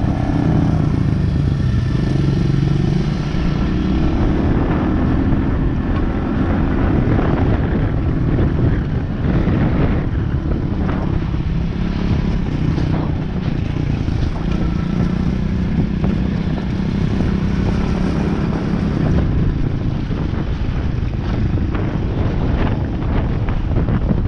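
Off-road vehicle's engine running while riding, its speed drifting up and down with the throttle, with scattered knocks and rattles.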